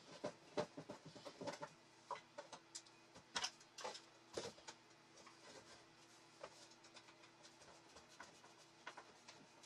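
Scattered small clicks and knocks of hand tools on a wooden chair seat: steel pliers handled and tapping against the wood, busiest in the first half and sparser later. A faint steady hum runs underneath.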